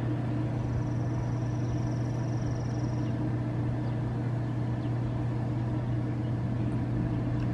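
Steady low machine hum, even in level throughout, with a faint high thin whine for about two and a half seconds starting half a second in.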